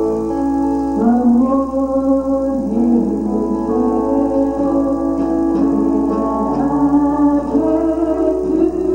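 Gospel piano music with held chords and a melody line, with some singing in it.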